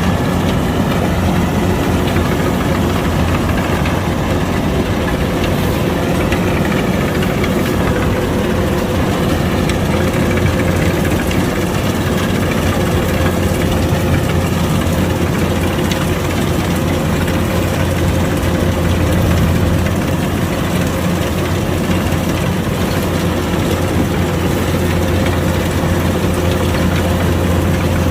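Kubota DC105X combine harvester's diesel engine and machinery running steadily at a constant speed, a continuous low hum with steady higher tones over it.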